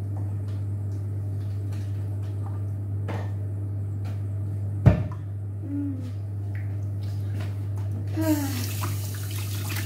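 A steady low hum with scattered faint clicks and one sharp knock about five seconds in. About eight seconds in, a kitchen tap is turned on and water runs in a steady rush.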